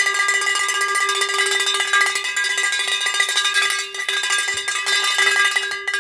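Cowbell Tailgater handheld cowbell beaten in a fast, continuous stream of strikes, its ringing tone held throughout and stopping near the end.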